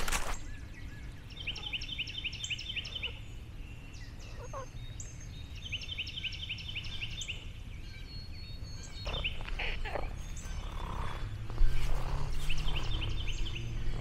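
A bird singing rapid trills of repeated high notes, three bursts a few seconds apart.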